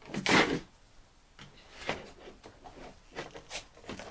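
Plastic toy packaging being handled and pried at by hand in a struggle to open it: a few short rustling, scraping sounds, the loudest about a third of a second in.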